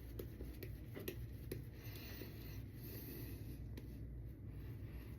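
Faint, soft scratchy rubbing of a synthetic-knot shaving brush working vegan shaving soap lather.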